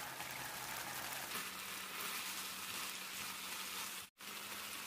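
Red curry sauce sizzling steadily in a frying pan as water spinach is added, an even hiss that cuts out for a moment about four seconds in.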